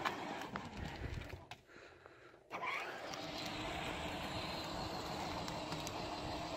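Battery-powered ride-on toy car running along asphalt: a steady electric motor hum with tyre noise, setting in about two and a half seconds in.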